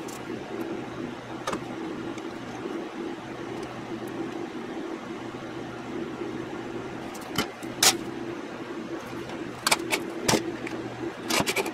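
A steady machine hum, with a few sharp clicks and taps in the last few seconds as the circuit board is picked up and handled.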